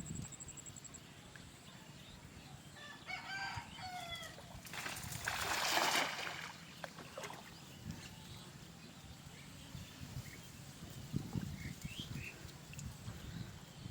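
A rooster crows in a pitched, bending call about three seconds in. Right after comes a louder rushing noise lasting about a second and a half.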